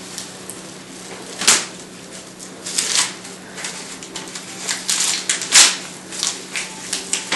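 Plastic wrapping crinkling and rustling in irregular bursts as it is pulled off the metal legs of a charcoal barbecue, loudest a little past halfway, over a steady low hum.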